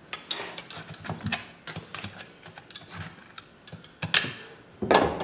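A knife cutting and scraping boiled meat off a longhorn bull skull, the blade clicking irregularly against bone. There are louder knocks about four and five seconds in.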